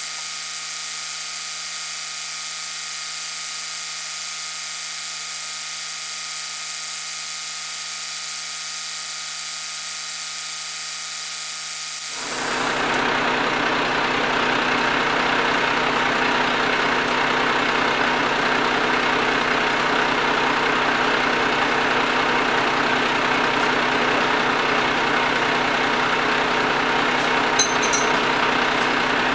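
Heavy flatbed crane truck's engine running steadily at idle, turning louder and rougher about twelve seconds in and holding there.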